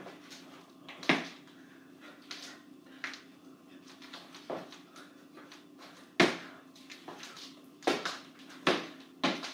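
Sneakers stomping and scuffing on a hardwood floor during dancing: irregular sharp thumps, a strong one about a second in, another around six seconds, then several in quick succession near the end, over a faint steady low hum.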